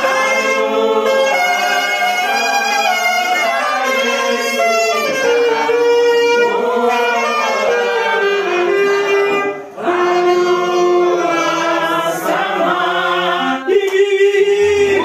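Saxophone playing a slow melody of long held notes live, with a group of people singing along.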